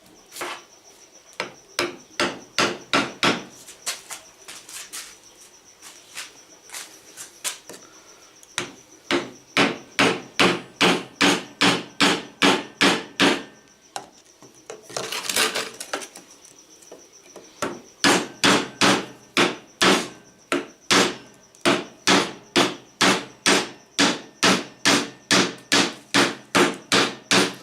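Hammer blows, about two a second, driving a screwdriver's steel shaft into a hole drilled in a hardwood handle, each blow with a short metallic ring; there is a brief pause about halfway through. Crickets chirp steadily in the background.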